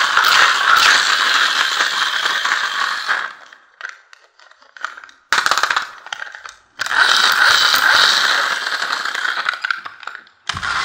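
Plastic Robocar Poli toy police car's geared wheel motor whirring with a fast clicking rattle as its wheels are spun by hand. It comes in two spells of about three seconds, with a shorter burst and a few loose clicks between.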